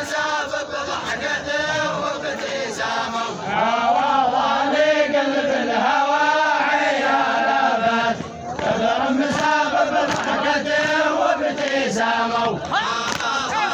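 A group of men chanting a Bedouin samra in unison, drawing out long sung notes; the chant swells louder a few seconds in and pauses briefly between lines.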